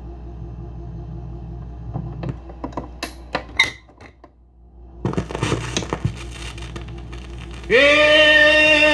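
RCA Victor J-2 45 rpm record changer cycling: over a low steady hum, its mechanism clicks and clatters as the tone arm swings onto the record. After a short lull, stylus noise comes through the speaker, and music starts loudly near the end.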